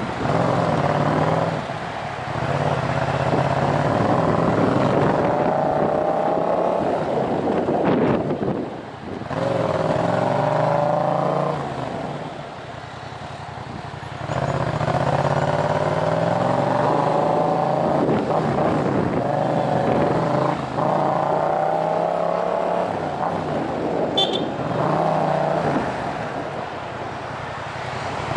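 Yamaha MT-07 parallel-twin engine through a Tiger full exhaust system with de-catted headers, revving in repeated short pulls at low speed in traffic. It drops twice to a lower, quieter note between pulls.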